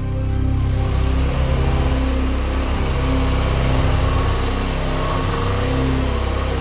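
Mitsubishi Outlander Sport's engine revving unevenly as the small SUV forces its way through deep snow.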